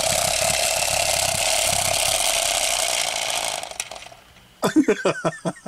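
Clockwork spring motor inside a small plastic wind-up 'Thing in a Box' toy buzzing as it unwinds, vibrating the box. It runs steadily for about three and a half seconds, then dies away without the lid popping open.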